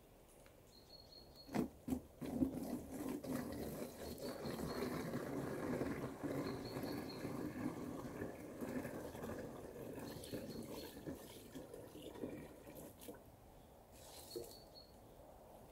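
Water being poured into a plastic bottle at a forest spring, a steady splashing pour that goes on for about ten seconds and fades away near the end. It is preceded by a few knocks of plastic containers being handled.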